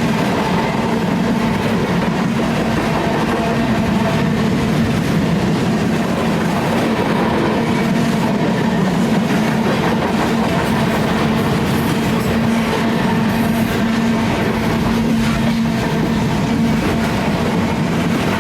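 Freight train rolling past at steady speed: a continuous rumble with the clatter of railcar wheels on the rails.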